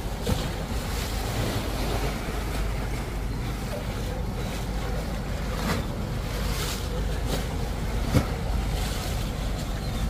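Wind buffeting the microphone over small waves lapping against a stone seawall, a steady rushing noise with a deep rumble. A few brief knocks, the sharpest about eight seconds in.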